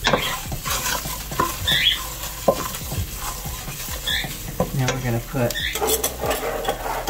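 Wooden spoon stirring and scraping a sizzling butter-and-flour roux in a stainless steel stockpot, the roux cooking on high heat.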